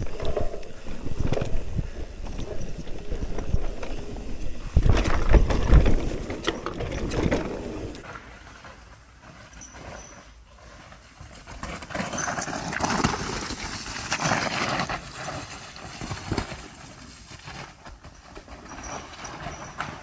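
Mountain bike ridden over rough trail: a rattling, knocking rumble from tyres and frame, with repeated short, very high-pitched squeals that fit the Hope E4 disc brakes squealing.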